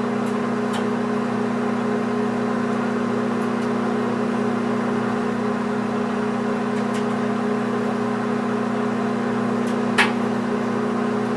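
Microwave oven running with a steady hum while heating a whole egg; a single sharp click about ten seconds in.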